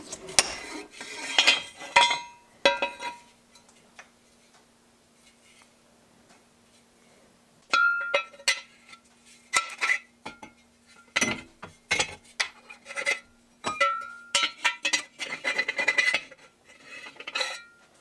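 Drilled steel bars and tubing clinking and clanking against each other and the steel vise as they are handled, in an irregular run of short ringing metal knocks. The knocks are busiest near the start and again from about eight seconds on. A faint steady hum runs through the quiet middle stretch.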